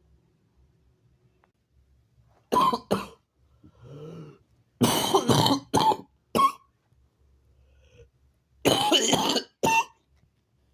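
A person coughing in three short bouts: two coughs, then a run of about four, then two more.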